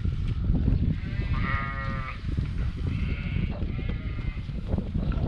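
Sheep in a large flock bleating: one loud, long bleat about a second in and a higher, shorter one near the middle, over a steady low rumble.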